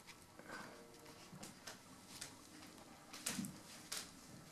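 Faint handling noise of stripped stereo-harness wires being twisted together by hand: a scattering of small sharp clicks and light rustles, the loudest click with a dull knock about three seconds in.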